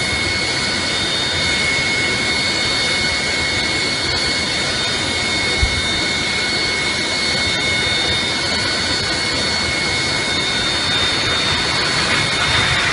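Jet airliner engines running with a steady high whine over a rushing noise, growing louder near the end as a jet comes along the runway. A single brief thump about halfway through.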